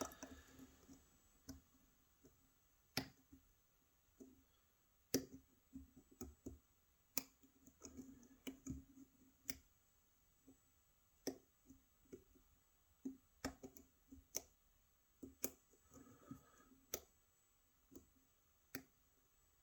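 Lock pick and tension wrench working the pin stack of a Euro cylinder lock: faint, irregular metallic clicks, one every second or so.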